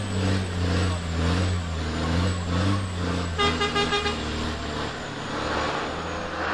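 MAN racing truck's 13-litre single-turbo diesel engine idling with a deep steady drone, its pitch wavering slightly. About three and a half seconds in, a horn sounds briefly in a quick series of short pulses.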